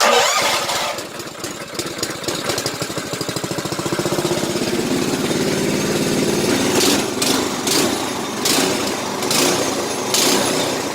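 Go-kart's small single-cylinder petrol engine starting on the choke and running, with the governor removed. Its speed surges up and down several times in the second half.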